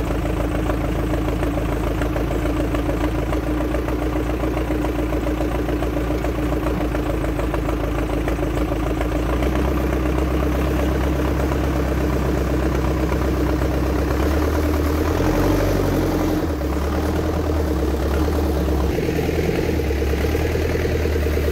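Case 580 backhoe loader's diesel engine running under load as it tows a stuck pickup truck out of a mud rut on a strap. The engine note shifts about ten seconds in and changes again a few seconds before the end.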